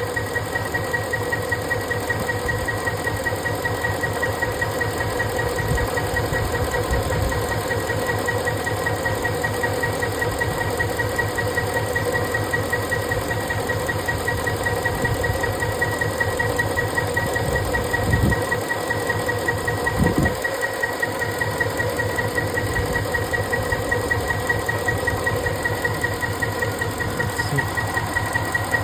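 Ford 5.4-litre three-valve V8 idling steadily with an even pulse and a constant high whine, during a misfire diagnosis just after cylinder 7's injector was turned in its bore and plugged back in. A couple of brief low thumps come near the middle.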